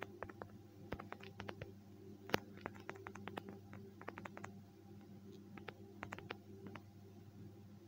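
Faint, irregular clicks of typing on a smartphone's on-screen keyboard, coming in quick runs of taps with one sharper click about two and a half seconds in, over a steady low hum.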